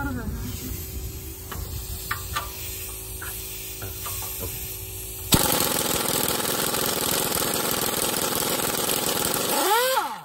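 Half-inch air impact wrench hammering at a rusted catalytic-converter bolt: it starts suddenly about halfway in and runs hard for about five seconds, ending with a short whine. Before it, a faint steady hum with a few light clicks.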